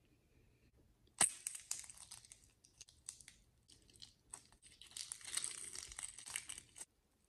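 An eggshell cracking sharply once about a second in, then shell pieces crackling and crunching as they are peeled away from the clear egg-white-and-dish-soap slime packed inside.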